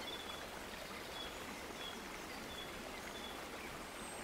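Faint steady background hiss with short, high chirps repeating about every half-second.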